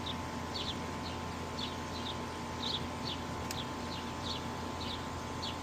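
A bird chirping over and over, short high chirps about twice a second, over the steady hum of the running air-conditioning unit's compressor.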